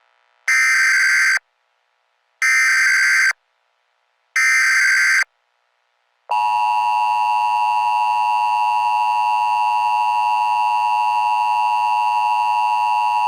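Emergency Alert System header: three short blasts of screechy, modem-like SAME data tones about two seconds apart. A little over six seconds in, the steady two-tone EAS attention signal starts and holds.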